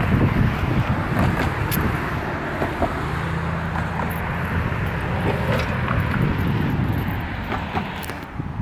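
Wind buffeting a phone microphone over the steady noise of passing road traffic, with a vehicle's engine hum standing out for a few seconds in the middle.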